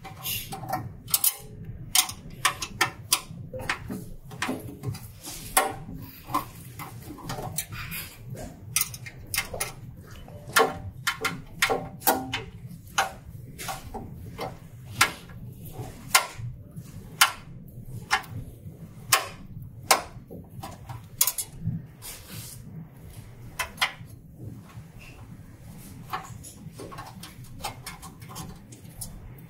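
Screwdriver working screws out of a printer's sheet-steel cover: many sharp, irregular metal clicks and taps as the blade seats in and turns the screw heads and knocks against the panel, over a low steady hum.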